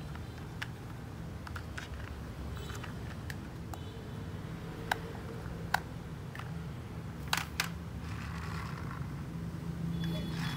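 A plastic toy truck being handled: a few short, sharp plastic clicks and taps over a steady low hum.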